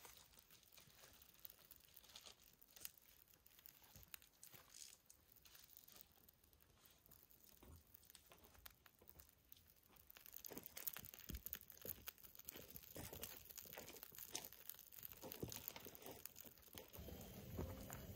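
Faint crinkling and crackling of dry tinder being handled and catching fire in a campfire lay. About ten seconds in, the small crackles grow denser and louder as the kindling flames up.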